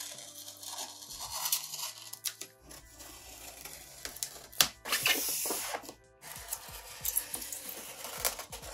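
Utility knife slitting the packing tape around a styrofoam box, with scraping and rubbing on the foam and a louder slicing stretch about five seconds in. Quiet background music plays underneath.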